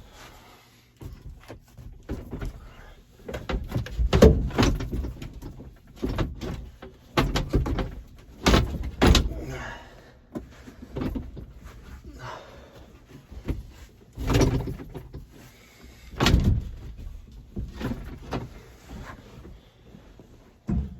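Irregular clunks, knocks and scrapes of parts being handled and shifted while working in a tractor cab. The loudest knocks come about four seconds in, around the middle, and twice in the last third.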